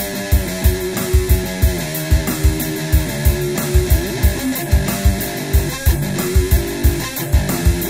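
Amplified one-string cigar box guitar (diddley bow) played in a metal style, riffing over heavy low thumps in a steady rhythm of about two to three a second, with some notes gliding in pitch.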